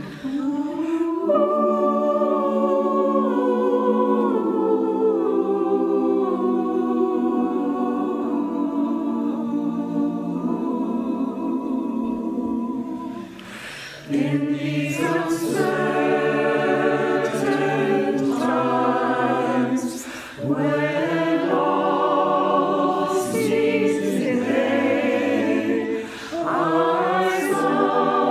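A mixed choir of men and women, each voice recorded at home and mixed into a virtual choir, sings slow, sustained chords. The phrases are split by short breaks for breath about halfway through and twice more later.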